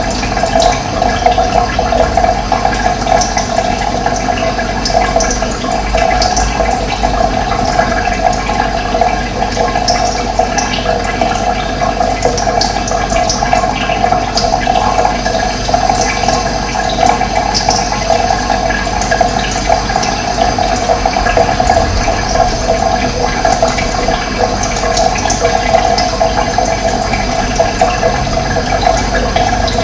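Running water rushing steadily, with short, high bird chirps scattered through it.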